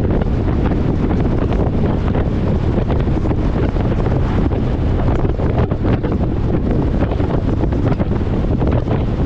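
Steady wind buffeting the microphone over a low rumble, as when filming from a moving vehicle.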